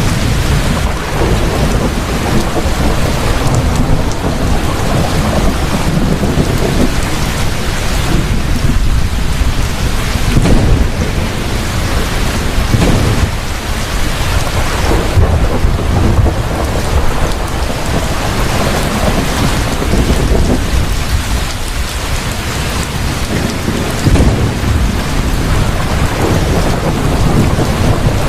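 Heavy rain falling steadily, with rolls of thunder rumbling through it several times.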